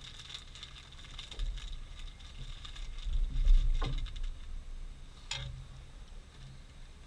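Wind buffeting the microphone in an uneven low rumble, loudest about three and a half seconds in, with a few short clicks and knocks on top.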